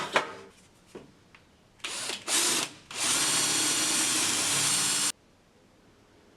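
Cordless drill triggered in two short bursts, then run steadily for about two seconds before stopping abruptly, after a few light handling clicks.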